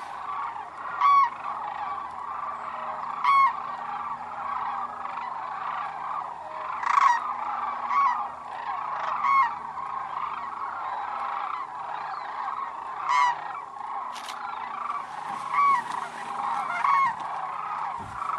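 A large flock of sandhill cranes calling: a dense, continuous chorus of calls, with louder single calls from nearer birds standing out every second or two.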